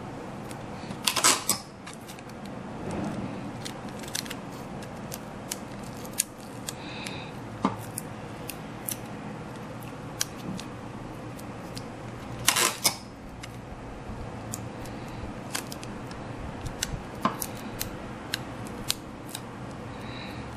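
Scissors snipping in two short quick runs, about a second in and again around twelve seconds in, with scattered light clicks and ticks between.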